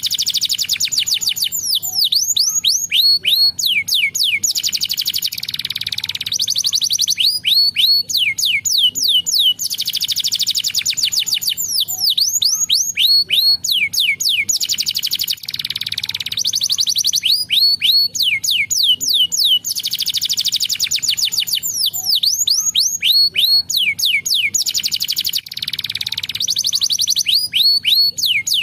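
Domestic canary singing a loud, continuous song: fast trills alternating with runs of quick downward-sweeping whistled notes, in phrases that repeat over and over.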